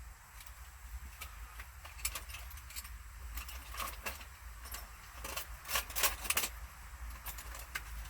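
Irregular sharp clicks and light rattles of small hard objects being handled, busiest and loudest between about two and six and a half seconds in, over a low steady rumble.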